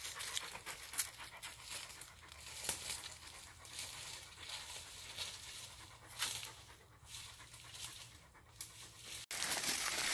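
Dog panting, with footsteps brushing through leaf litter and undergrowth; the sound cuts off abruptly near the end and picks up again louder.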